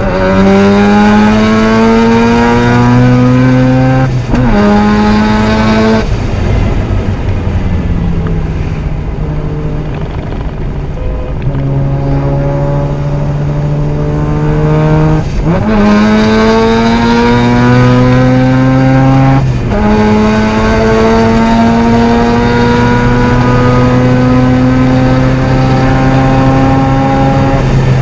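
Mazda RX-7 Spirit R's turbocharged twin-rotor 13B rotary engine accelerating hard under load, its pitch climbing through the revs and dropping sharply at gear changes about four, fifteen and twenty seconds in. Between about six and eleven seconds it eases off and the pitch sinks before it pulls again.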